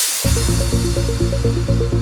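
Electronic background music: a steady bass under a fast, repeating pattern of short synth notes, entering after a brief drop about a quarter second in.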